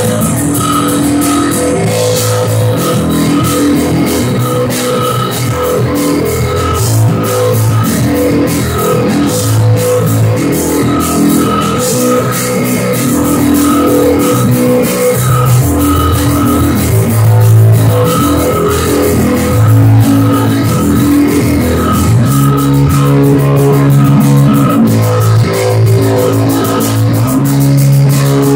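A live rock band of drum kit, electric bass and electric guitar playing an instrumental jam, with a repeating riff over a steady beat; the bass line moves to a different pattern about three-quarters of the way through.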